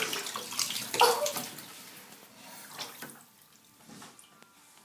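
Water splashing and sloshing, with a sharp splash about a second in, dying away after about three seconds, as the cat paws at the water after fish.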